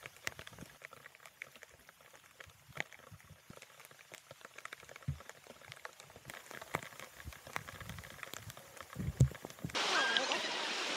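Faint, irregular patter of raindrops ticking on an Insta360 camera, with a couple of dull thumps. Near the end a steady, louder sound of surf with wind on the microphone cuts in abruptly.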